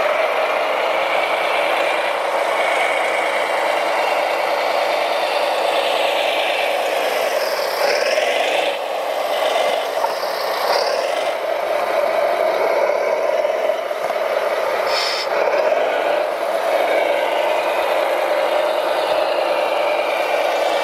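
Radio-controlled Volvo wheel loader model at work: a steady whine from its electric drive and hydraulic pump, dipping and rising again about eight seconds in. Some scraping and rattling of gravel and stones around the middle.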